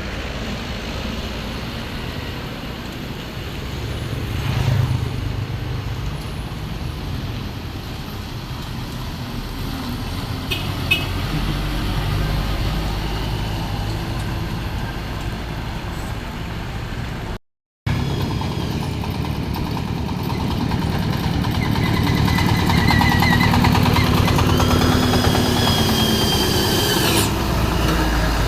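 Heavy trucks passing on a road, their engines rumbling steadily. A hard edit break comes about two-thirds through, and after it a louder truck passes with a high whining tone over the engine near the end.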